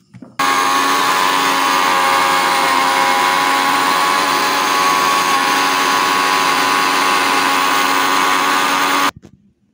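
Electric mixer grinder switched on about half a second in, its motor running steadily at full speed as it blends carrots with ice water into juice, then switched off abruptly near the end.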